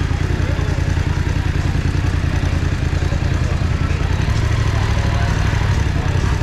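BMW F900R's parallel-twin engine running at low revs as the bike rolls at walking pace, a steady low throb from the exhaust.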